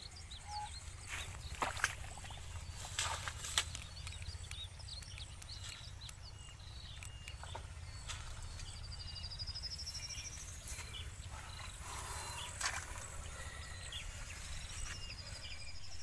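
Rustling and snapping of tall grass and weed stems as people push through the vegetation, several sharp cracks in the first few seconds. Behind it, small high bird chirps and, twice, a high trill rising in pitch.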